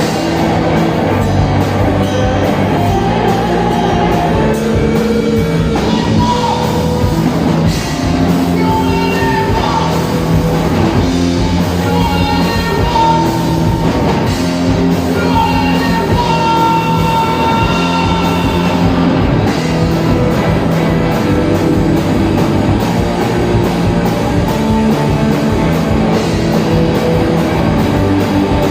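Rock band playing loud live music, with electric guitar and drum kit.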